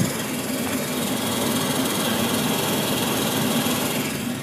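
Trane XR80 80% gas furnace running with its burners lit, just fired up on a new heat exchanger: a steady hum with even mechanical noise, which the technician finds a little noisier than he would like.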